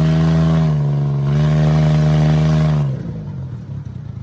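A motor vehicle's engine running loud at steady revs. Its pitch sags briefly about a second in and comes back, then the engine note drops away sharply about three seconds in, leaving a quieter rumble.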